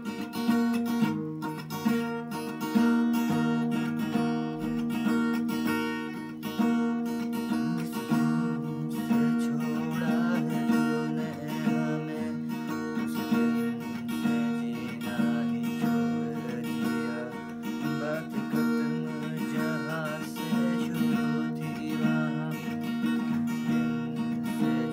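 Acoustic guitar being strummed, a continuous run of chords.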